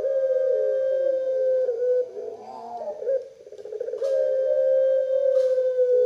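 Caged collared dove cooing: two long, drawn-out held notes of about two seconds each, with a short wavering coo in between.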